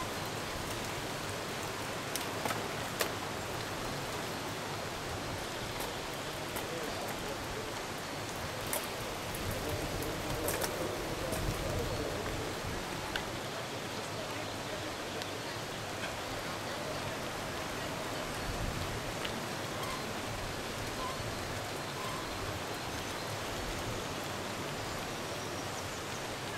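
A large pack of mountain bikes riding past on a paved road: a steady rush of tyres and chains, with a few sharp clicks in the first ten seconds and faint voices.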